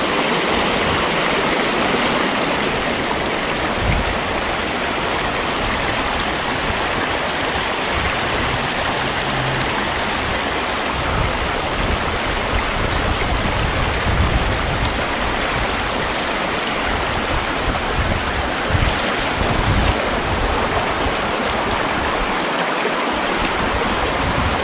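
Small mountain trout creek flowing, a steady even rush of running water.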